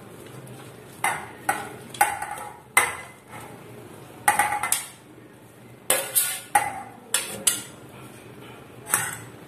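Stainless steel plate knocking and scraping against the rim of a steel bowl as grated cabbage is tipped and pushed off it: about a dozen sharp, irregular metal clinks.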